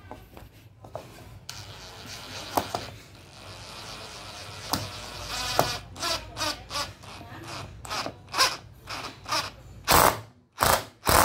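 DeWalt cordless brushless impact driver driving a screw at a slant into a block of wood. It runs steadily for a few seconds, then works in a string of short bursts, ending in a few loud bursts near the end.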